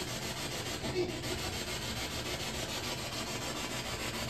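A steady, rasping hiss with a fast, even flutter running through it.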